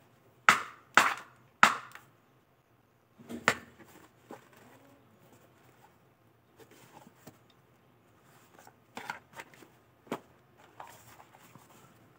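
Sharp knocks from the hard polymer caps of a pair of tactical knee pads being handled and knocked together: three loud knocks in quick succession, another a couple of seconds later, then fainter knocks and rustling of the fabric pads.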